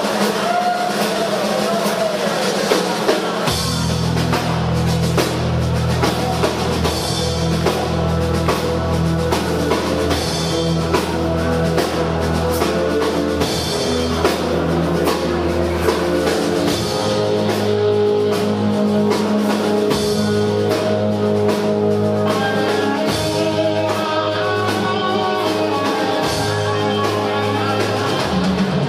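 Rock band playing: drum kit and electric guitar, with a low bass line coming in about three and a half seconds in.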